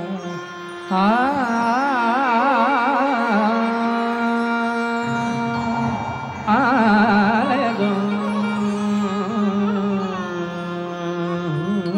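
Marathi song in Raag Megh in Indian classical style: a melody line with fast, wide pitch shakes over a steady drone, one ornamented phrase starting about a second in and another about halfway through.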